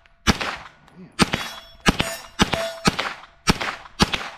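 Smith & Wesson FPC 9mm carbine fired seven times in steady semi-automatic shots, about one every half second, with a brief metallic ring after several of the shots.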